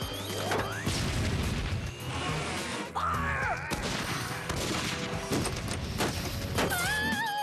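Cartoon sound effects of a harpoon cannon firing and cables striking a spaceship's hull, a rapid series of sharp shots and impacts, over action music.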